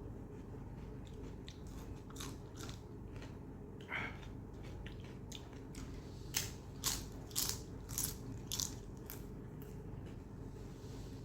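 Close-miked chewing and biting of mutton curry and soaked roti: wet clicks and smacks, with a run of five louder ones from about six to nine seconds in.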